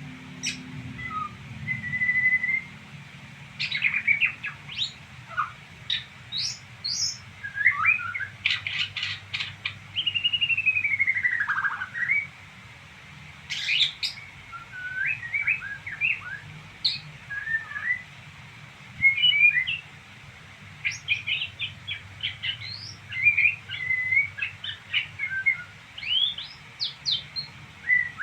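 A songbird twittering: a varied run of quick chirps, short whistles and trills, with one long falling whistle about midway through.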